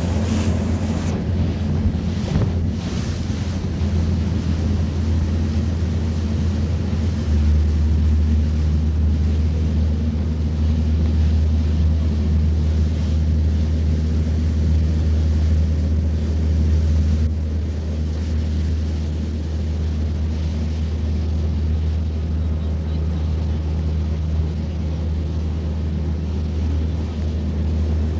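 A boat's motor running steadily under way, a constant low hum, with water rushing past the hull and wind buffeting the microphone. The wind noise eases a little past the halfway point.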